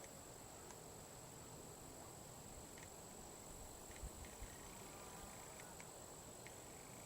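Near silence with a faint, steady high-pitched insect drone, and two soft thuds about four seconds in.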